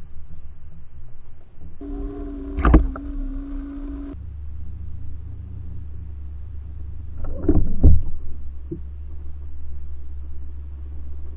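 Underwater sound picked up by a submerged camera: a steady low rumble with a low droning tone for a couple of seconds. A sharp knock comes near the start, and a cluster of loud knocks comes about two-thirds of the way through.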